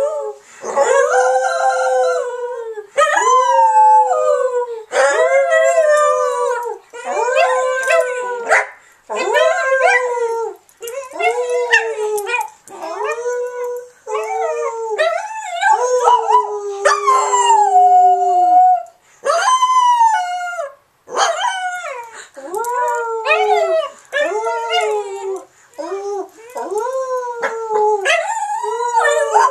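Small terrier-type dog howling along with people howling: a long run of drawn-out, wavering howls, one after another with short breaks, many sliding down in pitch at the end.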